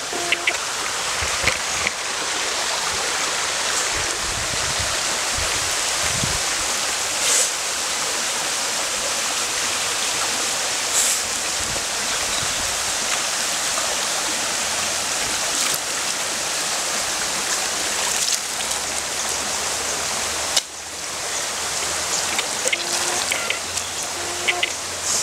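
Shallow stream running steadily over rocks, an even rush of water.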